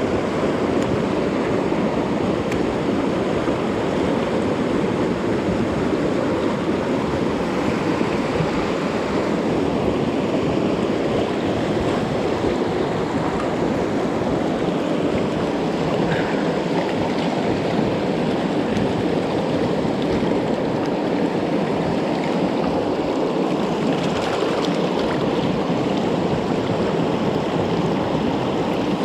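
Mountain creek water rushing steadily over rocks, an even, unbroken wash of sound.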